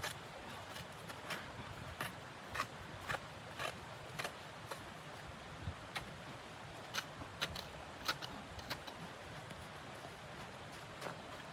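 A series of short, crisp crunches or clicks over a steady hiss, roughly two a second at first and then more irregular.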